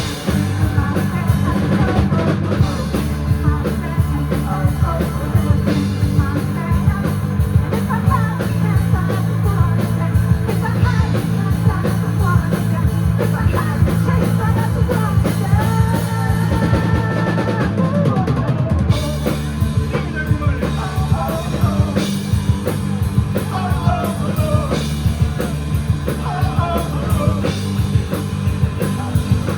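Live rock band playing: drum kit keeping a steady beat under a bass line and electric guitars.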